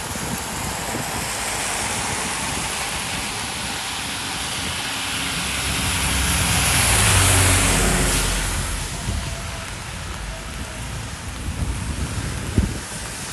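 A car passing on a wet road: the tyre swish swells to a peak about seven seconds in over a low engine hum, then fades. Steady rain and wind hiss underneath, with one sharp knock near the end.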